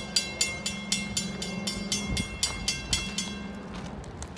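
Railroad grade-crossing warning bell ringing rapidly, about four strikes a second, then cutting off near the end. A low steady hum runs underneath.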